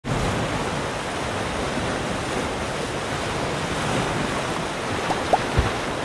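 Ocean surf breaking and washing over a shore of large rounded stones: a steady rush of waves, with a few brief knocks near the end.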